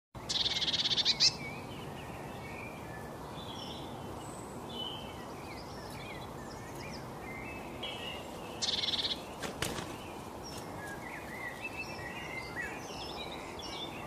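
Small songbirds chirping and calling over a steady outdoor hiss, with two loud, fast, buzzy trills, one near the start and one about nine seconds in. A single sharp click comes just after the second trill.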